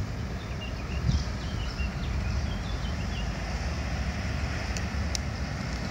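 Steady low rumble of a large river cruise ship's engines passing. There are a few short high chirps in the first half and two sharp clicks near the end.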